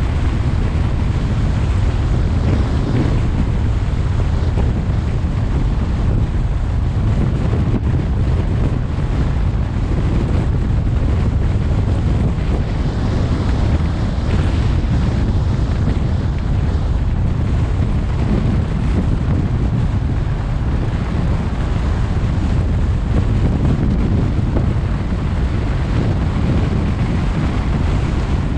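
Steady wind rushing and buffeting over the microphone of a camera on a moving car, mixed with low tyre and road noise from driving on a paved highway.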